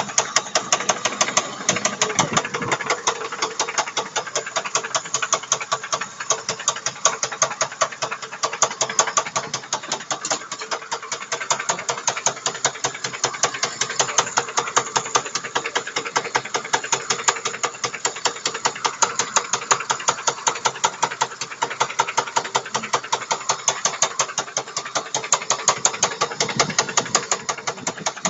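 Opel Omega's C20NE 2.0-litre four-cylinder engine idling with a rapid, even knocking. The owner can't place the knock and suspects the power steering pump, which has stopped working.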